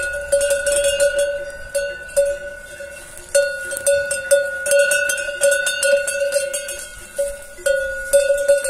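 A cencerro, a cowbell-style metal bell hung on a grazing mare's collar, clanking again and again as she jerks her head tearing at giant cane. The strikes come irregularly with a ringing tone held between them, and there are two short lulls.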